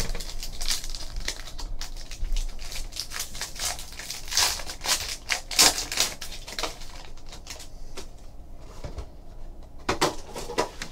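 Foil trading-card pack wrapper crinkling and crackling as it is pulled open by hand, busiest over the first six seconds or so, then quieter handling of the cards with a few light clicks near the end.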